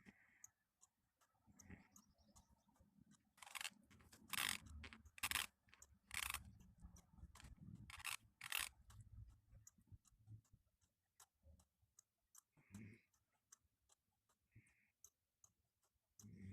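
Teeth grinding in sleep: a run of about seven short, harsh grinding scrapes in the middle, over faint, evenly spaced ticking.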